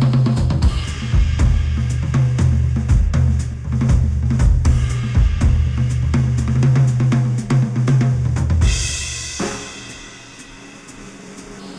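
Instrumental music with a full drum kit (kick, snare, hi-hat, cymbals) and heavy bass, played through open headphones and picked up by microphones at the earcups. A little over two-thirds of the way in, the bass drops out under a bright cymbal wash and the music grows quieter.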